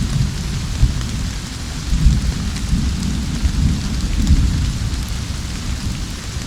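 Summer thunderstorm: steady rain hissing and pattering on surfaces under a continuous low rolling rumble of thunder, swelling briefly about two seconds in and again a little past four seconds.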